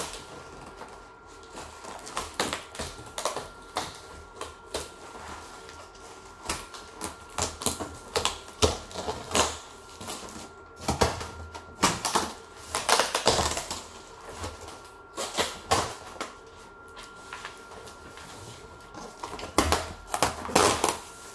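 Scissors cutting through packing tape and cardboard on a plastic-wrapped shipping box, with the plastic wrap crinkling and the cardboard being handled: irregular clicks, snips and crackles.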